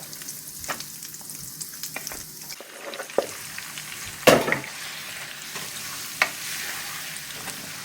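Marinated chicken sizzling in hot oil in a pan, a steady hiss, with scattered clicks and knocks from a utensil stirring it against the pan. The loudest knock comes a little past the middle.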